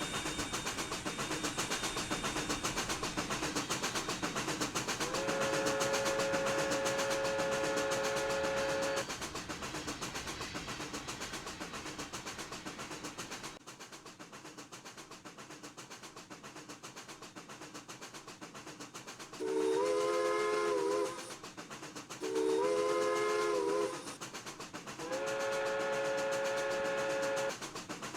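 Steam locomotive whistles of the doubleheader PRR 7002 and PRR 1223 over the steady noise of the moving train: one long single-pitched blast about five seconds in, then three more blasts near the end with a chord sound that bends slightly in pitch.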